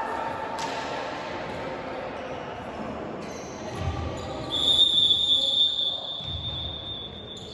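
Volleyball being played in a reverberant sports hall: the ball thuds and players call out to each other. About halfway through, a steady high-pitched tone starts and holds to the end.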